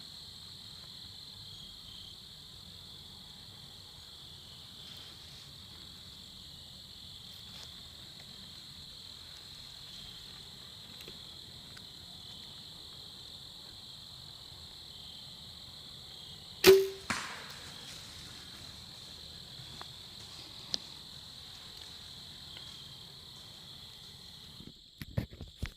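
A steady chorus of crickets and other insects in evening woods. About two-thirds of the way through comes a single sharp crack of a compound bow being shot at a deer, with a brief ringing after it; the hunter felt the shot sounded far back on the buck.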